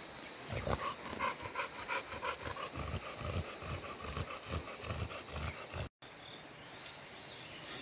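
A dog panting in a quick, regular rhythm while walking. About six seconds in it cuts off abruptly, leaving quieter outdoor background with faint high chirping.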